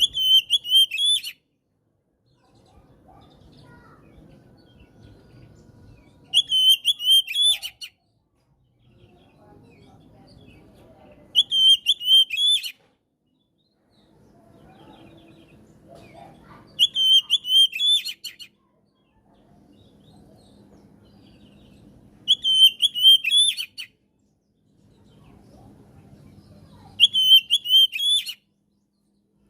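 Oriental magpie-robin (kacer) song: a short, rapid phrase of loud whistled notes, the same phrase repeated six times about five and a half seconds apart, with a faint low rumble in the gaps.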